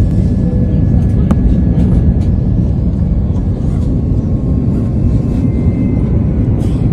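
Airliner cabin noise in flight: a steady, loud low rumble of engines and rushing air, with faint steady whining tones above it and a few light clicks.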